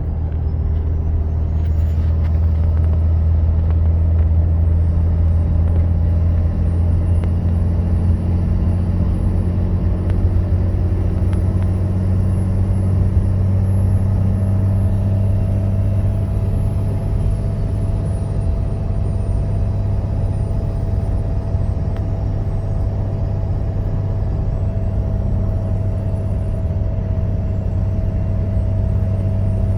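Car engine running with a loud, steady low drone from the front of the engine compartment, with a steady higher tone joining about halfway through. The owner takes the noise for a failing fan clutch, since a new idler pulley, belt tensioner and belt have not cured it.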